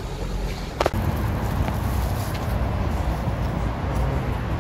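Steady low outdoor rumble of vehicle and traffic noise with wind on the microphone, after a brief sharp click about a second in.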